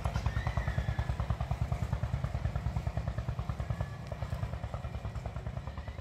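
A small engine running steadily with a fast, regular low thumping, about eight beats a second, easing off a little after about four seconds.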